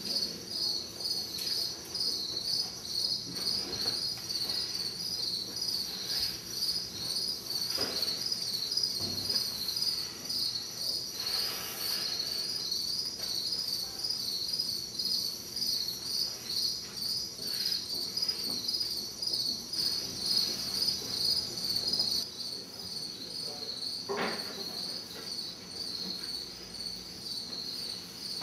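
Crickets chirping in a steady, evenly pulsed rhythm, with a few soft knocks, one at about a third of the way in and a clearer one near the end.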